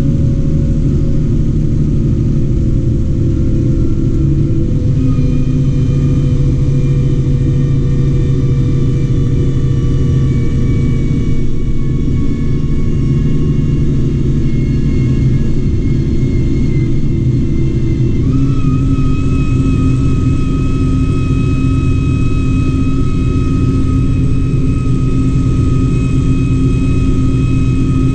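New Holland tractor's engine and drivetrain running steadily at road speed, heard inside the cab while hauling a trailer of barley. A whine over the hum slowly falls in pitch, then steps up about two-thirds of the way through.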